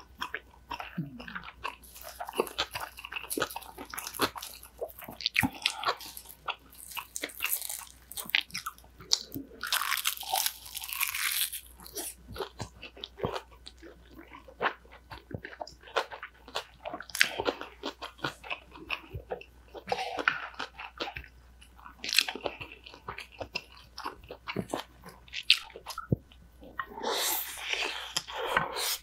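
Close-miked eating: crunchy biting and chewing of a bibimbap made with fresh seasoned cucumber and pickled cucumber, with many short sharp crunches.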